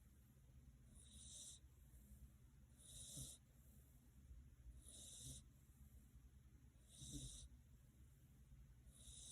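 A sleeping cat snoring faintly, a soft hissy breath about every two seconds, five in all.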